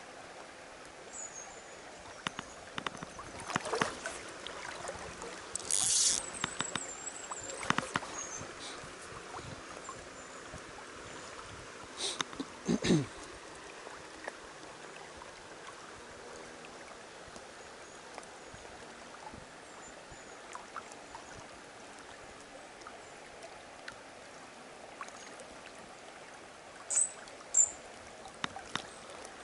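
Steady hiss of a flowing river, broken now and then by small clicks and taps, with a brief high chirp about six seconds in and a few sharper ticks near the end.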